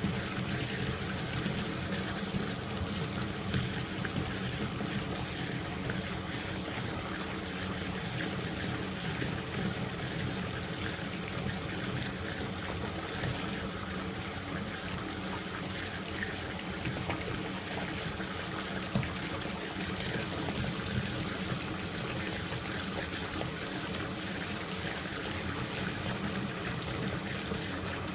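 A bathtub faucet running steadily, its stream pouring through a wire-mesh strainer and splashing into a tub filling with bubble-bath foam.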